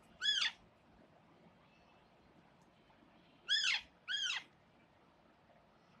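Parakeet giving three short, shrill calls, each rising then falling in pitch: one near the start, then two in quick succession about three and a half seconds in.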